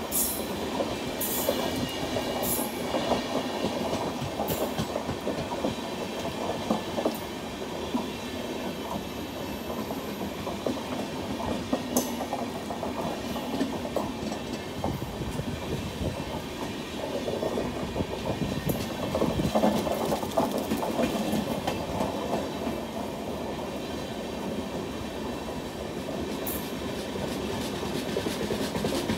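Indian Railways express train running through a station at speed without stopping: the steady rumble of the coaches, with sharp clicks from the wheels over the rail joints.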